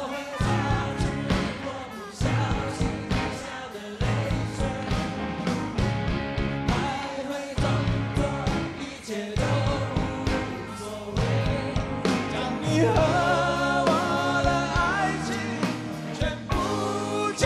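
Live rock band music with singing, a passage between the recognised sung lines of the song.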